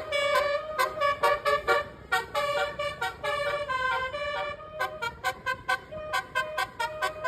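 Bus telolet horn, a Basuri multi-trumpet air horn, playing a quick melody of short staccato toots and a few longer held notes at several pitches, over a low engine rumble.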